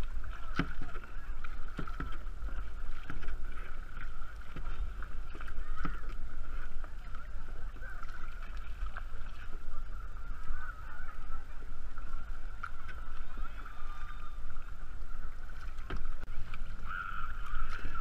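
Kayak paddle strokes dipping and splashing in the water, with wind rumbling on the camera microphone and a thin steady hum throughout.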